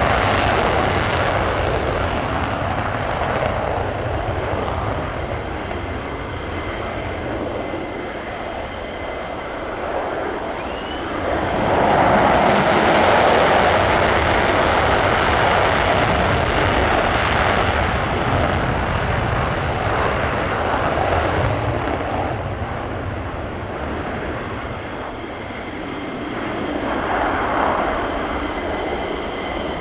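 Twin Pratt & Whitney F100 turbofans of a USAF F-15E Strike Eagle running in afterburner on takeoff and climb-out: a loud, steady jet noise. It swells to its loudest a little before halfway, then slowly eases off.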